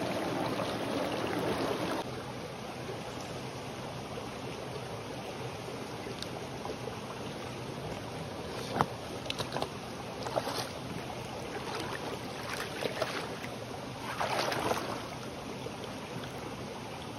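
Small rocky brook flowing, a steady rush of water that is louder for the first two seconds and then settles into a quieter, even flow. Several short splashes and knocks come in the second half, from wading steps in the shallow water.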